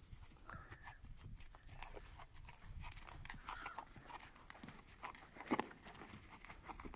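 Horse's hooves walking on soft sand, faint irregular thuds and scuffs, with a louder pair of knocks about five and a half seconds in.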